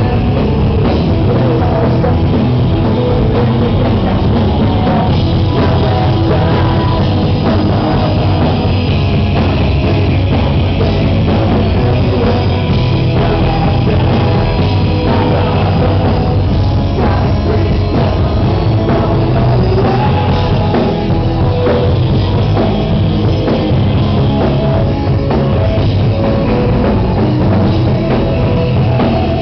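Rock band playing live, loud and without a break: a pop-punk song with a drum kit and guitars.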